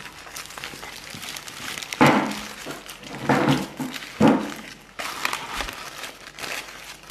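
Paper fast-food bag and wrappers rustling as food is taken out, with three louder knocks or thuds on the table about two, three and four seconds in.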